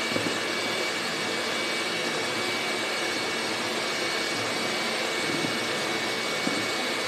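Electric hand mixer running steadily at an even speed, its beaters whisking cupcake batter with cocoa powder in a bowl.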